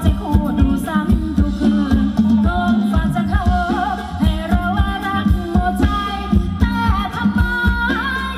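Live Thai ramwong dance music from a band, played loud through PA speakers: a singer's wavering melody over a steady drum beat and bass.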